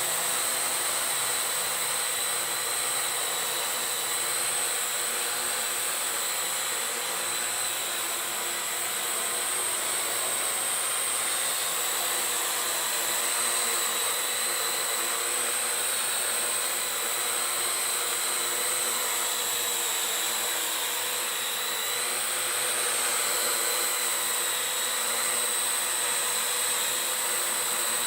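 Parrot AR.Drone 2.0 quadcopter's four brushless electric motors and propellers running steadily in flight, a high whine that wavers slightly in pitch.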